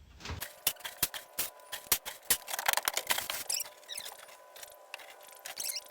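Dry rustling and crackling with irregular sharp clicks and knocks as hay and feed are handled into buckets.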